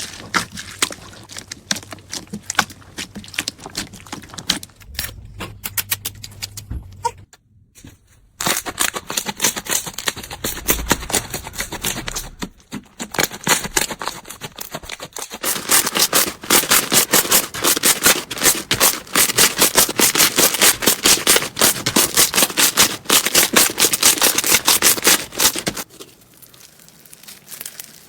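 Slime being squeezed and pressed by hand, giving rapid crackling and clicking pops. There is a short pause about a third of the way in, and the clicking is loudest and densest in the second half.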